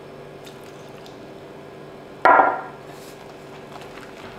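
A single sharp knock of glass kitchenware about two seconds in, ringing briefly, over a faint steady hum.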